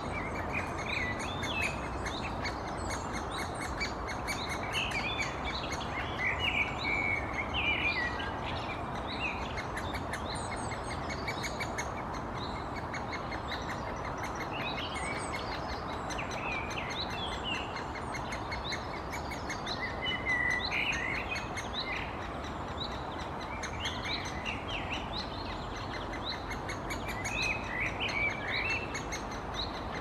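Great spotted woodpecker nestling calling from its nest hole: a persistent run of short, high calls repeated again and again, over a steady background hiss.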